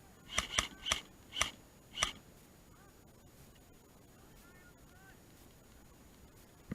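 Airsoft gun fired five times in single shots, sharp snapping cracks spread unevenly over about two seconds near the start.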